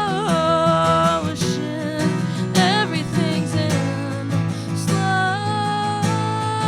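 Song performed live: strummed acoustic guitar under long, held sung notes that waver in pitch.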